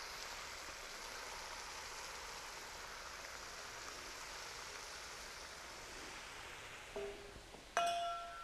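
About a cup of water poured into a hot pan of curd-and-masala gravy, a steady hiss that fades out about six and a half seconds in. Then a metal utensil clinks twice, the second clink ringing on.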